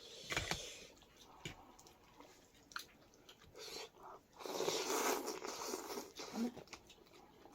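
A person eating thukpa noodle soup: small mouth clicks and chewing, then a long slurp lasting over a second about halfway through.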